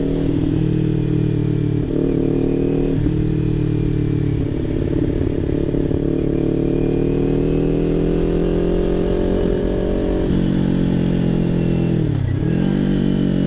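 Sport motorcycle engine running steadily at cruising speed, heard from the rider's seat. Near the end the revs briefly fall and then climb back.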